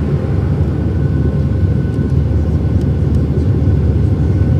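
Cabin noise of a Boeing 737-700 climbing out after take-off: a steady, loud low rumble of its CFM56-7B turbofans and airflow, heard from a seat over the wing, with a faint steady whine above it.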